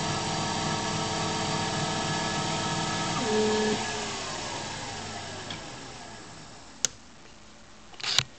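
Emco Compact 5 CNC lathe running, its spindle motor and axis drives making a steady many-toned hum. About three seconds in, a brief stronger tone comes as the carriage moves, then the spindle winds down, its pitch falling and fading away. A sharp click comes near the end, then a short burst of hiss.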